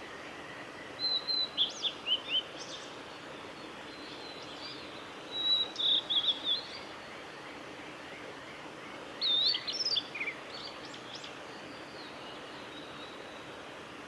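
Male blue-and-white flycatcher singing: three short song phrases of high whistled notes and quick chirps, about four seconds apart, over a steady background hiss.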